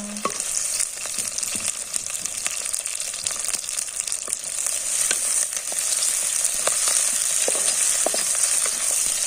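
Onion, whole spices and bay leaf frying in hot oil in a pan for an Indian tempering (phodni/tadka): a steady sizzling hiss with scattered small crackles.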